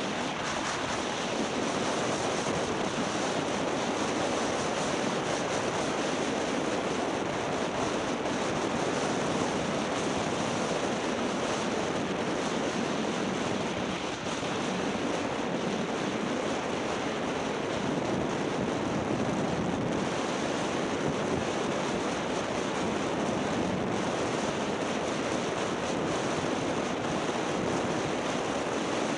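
Steady rushing hiss of sliding downhill over packed snow, mixed with wind buffeting the camera's microphone, dipping briefly about halfway through.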